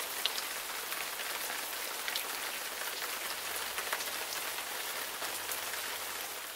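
Steady rain falling, an even hiss dotted with the sharp ticks of single drops.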